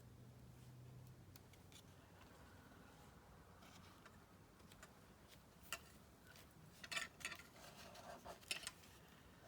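Near silence, then a short run of light clicks and paper rustles in the second half as paper pieces are handled and worked at the craft table.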